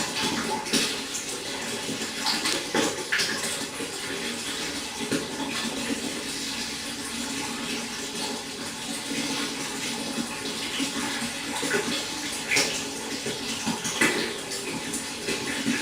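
Running water splashing and trickling steadily into a pond, with brief louder splashes now and then.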